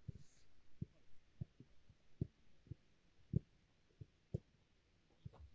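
Faint, dull thumps of footballs being kicked on the training pitch, about eight at uneven intervals.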